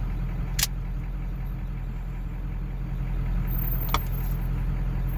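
Truck engine idling steadily, heard from inside the cab, with two short clicks, one near the start and one about four seconds in.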